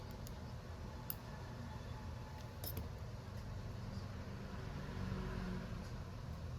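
A few faint, short light clicks over a steady low hum.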